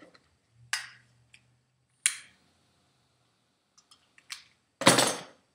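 Homemade propane nozzle on a small propane cylinder being test-fired: four short rushes of gas noise with quiet between them. The last, about five seconds in, is the loudest and lasts about half a second.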